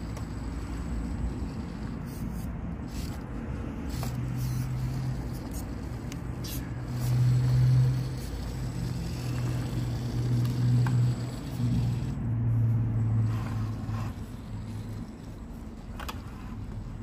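Axial SCX24 micro RC crawler's small electric motor and gears droning in stop-start spurts as it crawls over rocks, with a few sharp clicks.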